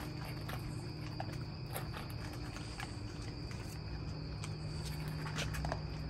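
Steady chirring of crickets and other night insects over a low steady hum, with scattered small clicks and crunches of puppies eating dry kibble from metal bowls.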